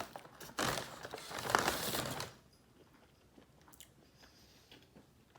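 Crinkling of fast-food paper packaging, handled in one long stretch from about half a second in to just past two seconds, then only faint small ticks.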